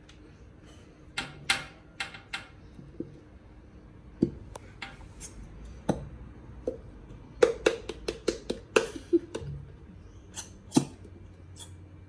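Plastic glue bottle squeezed upside down over a bowl, giving an irregular run of sharp clicks, pops and knocks in several clusters.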